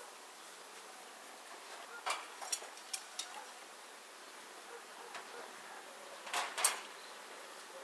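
Sharp clicks and knocks of wooden beehive parts being handled: four quick ones about two seconds in and a louder double knock near the end, over a faint steady hum of bees.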